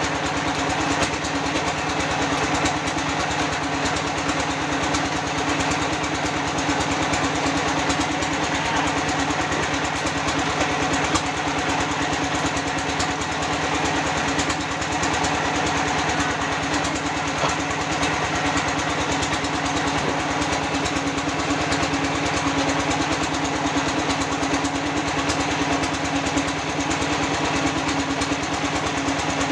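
A small engine running steadily at a constant speed, with a fast, even pulsing.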